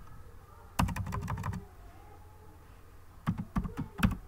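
Computer keyboard keys being typed in two quick runs of clicks, one about a second in and one about three seconds in, as a misspelled word is deleted and retyped.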